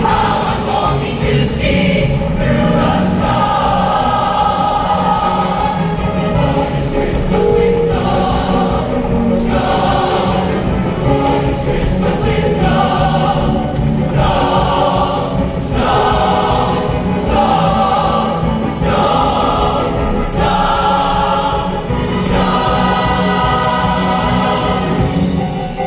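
A choir singing with instrumental accompaniment, in steady phrases.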